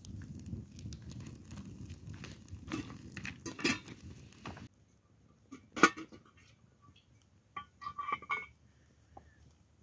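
Wood fire crackling with a low rumble of flame. It stops abruptly about halfway, giving way to a few clinks of a metal pot and dishes being handled, with a single loud clink and then a short run of clinks near the end.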